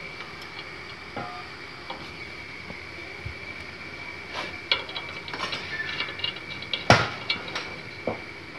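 Light metallic clinks and ticks of nuts and studs being handled at a bandsaw mill's belt pulley hub, with one sharper metal knock about seven seconds in.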